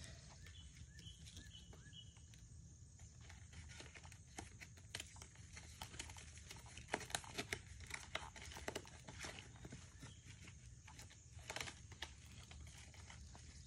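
Faint crinkling, rustling and irregular clicking of packaging being pulled and torn off a new children's bike, busiest in the second half. A few short, high chirps sound about a second in.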